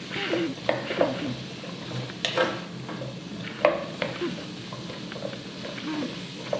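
Wooden spoon stirring chopped onion, leek, celery and carrot in a thick-bottomed pan, with irregular knocks and scrapes against the pan, over a soft sizzle of the vegetables sweating in butter.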